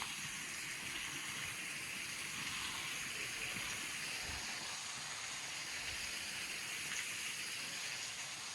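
Steady rush of water from a waterfall and its stream, an even hiss with no break.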